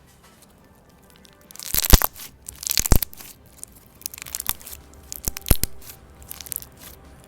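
Thick semi-foam slime mixed with beads being squeezed and pressed by hand, crunching and crackling in about five bursts, the loudest in the first half. Faint background music runs underneath.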